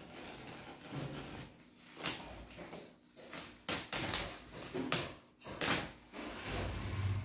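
Plastic parcel wrapping and packing tape being cut and pulled open: irregular crinkling rustles broken by several sharp rips, the loudest about three quarters through. A steady low hum comes in near the end.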